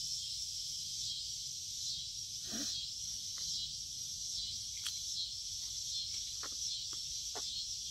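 A steady high chorus of insects, with a few soft clicks and a short rustle of small items being handled.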